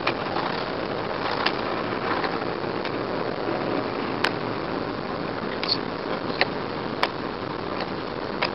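Steady rush of tyre and road noise heard inside a moving car on a wet road, with a handful of short sharp clicks scattered through it.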